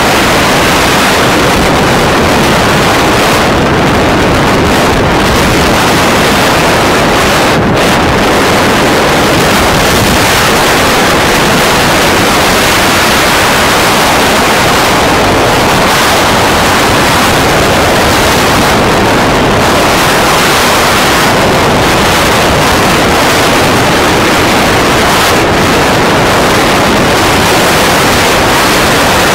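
Loud, steady wind rush over the microphone of a motorcycle riding at speed, a Bajaj Pulsar 180; the wind covers almost everything else.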